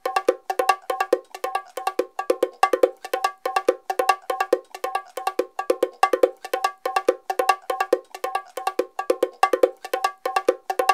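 Fast, steady patter of struck metal percussion, cowbell-like, several strikes a second, each ringing at the same two pitches.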